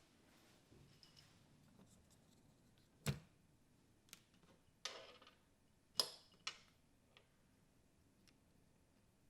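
Light handling noises from the plastic tape mechanism of a cassette recorder being worked on by hand: a few sharp clicks and taps, the loudest about a third of the way in and about two-thirds through, with a short scraping rub between them.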